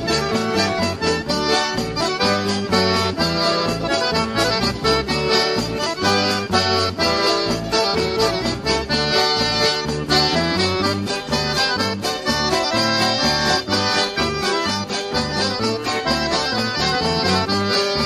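Accordion-led dance music with bass notes and a steady percussion beat.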